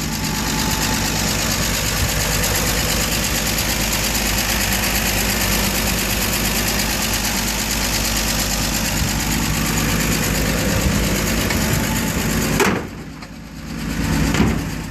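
1954 Chevrolet truck's straight-six engine idling steadily, heard up close over the open engine bay. The sound drops away briefly near the end, then comes back.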